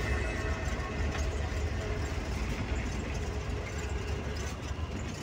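Bus engine and road noise heard from inside the driver's cabin while the bus is driving: a steady low rumble.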